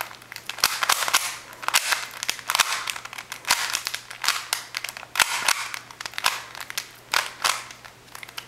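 Rubik's Cube being scrambled by hand: its plastic layers clacking as they are turned, in quick repeated bursts of clicks.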